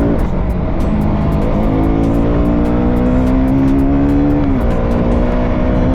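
Motorcycle engine running on the move, its note dropping right at the start, climbing again about a second and a half in and dropping once more near four and a half seconds in, over a heavy rumble of wind on the microphone.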